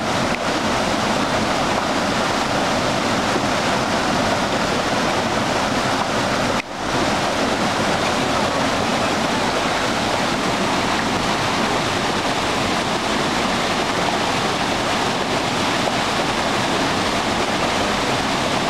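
Waterfall pouring over rock: a steady rushing of water that cuts out for an instant about a third of the way in.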